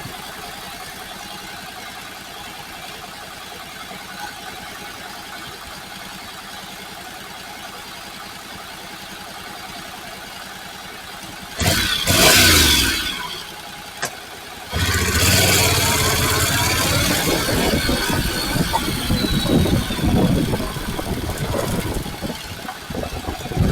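Honda NC750X parallel-twin engine idling steadily, then revved sharply about halfway through. After a brief drop back, it runs loud and uneven under throttle through the rest, with a rushing hiss.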